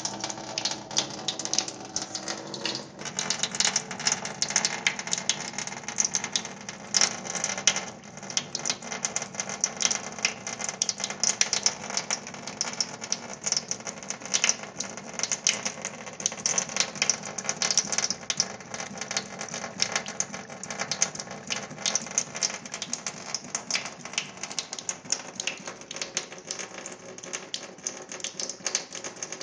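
Thin stream of water from a kitchen tap splashing into a stainless steel sink while a cat laps at it, a rapid, irregular patter of clicks over a steady rush of water.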